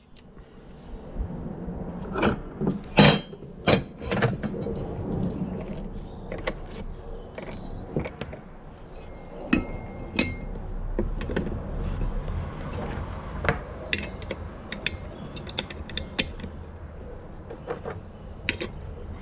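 Steel mower blade and its fixing parts being refitted by hand to the mower's spindle: a string of sharp metal clicks and knocks as the parts meet, the loudest about three seconds in.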